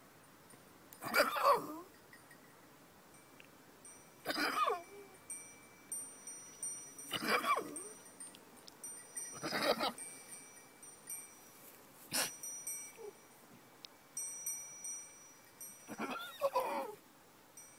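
Goats bleating, about five wavering calls of half a second to a second each, spaced a few seconds apart, with a short sharp sound near the two-thirds mark and a faint high tinkling in between.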